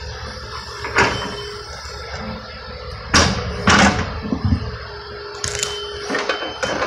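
Sidewalk demolition by construction equipment: a steady low engine rumble with several sharp bangs and clanks of concrete and metal, the loudest pair about three seconds in.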